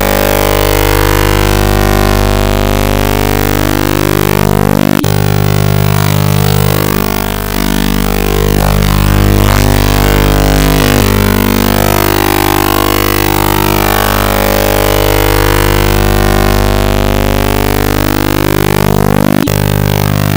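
Loud, heavily distorted electronic drone: steady buzzing tones overlaid with sweeping pitch glides, with abrupt cuts about five seconds in and again near the end.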